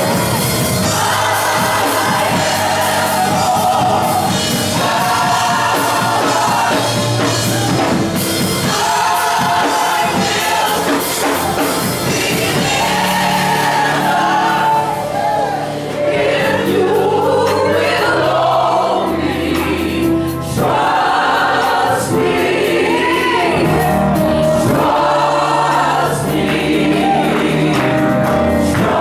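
Gospel choir singing in full voice, accompanied by keyboard and percussion.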